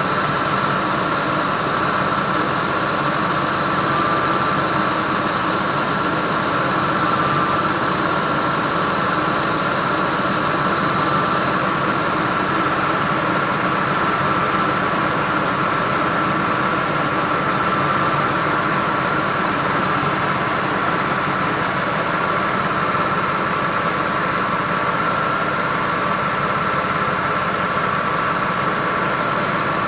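1998 Ford Expedition's 5.4-litre V8 idling steadily with the air conditioning running on high, a steady high whine sitting over the engine sound.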